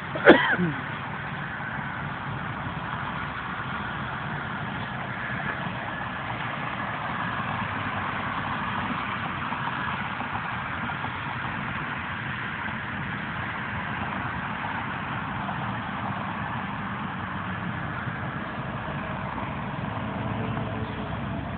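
Road traffic going by: cars and tractor-trailers passing on a wet road, a steady mix of engine hum and tyre noise. Just after the start there is one brief loud sharp sound that drops quickly in pitch.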